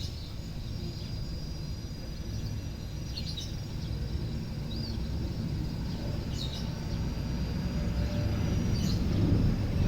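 A few short, scattered bird chirps over a steady low rumble of traffic that grows louder toward the end.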